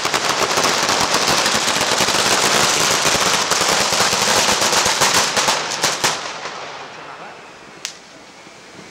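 A row of ground fireworks going off: a dense, rapid crackle of firecrackers for about six seconds, then dying down to a steady hiss of burning fountains, with one sharp bang near the end.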